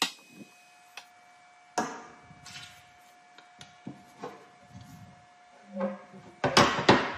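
Scattered knocks and taps of objects being handled in a workshop, with a quick run of louder knocks near the end.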